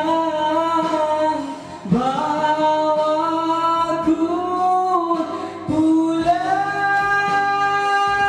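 A man singing into a handheld microphone, with long held notes; about six seconds in he slides up onto one long note and holds it.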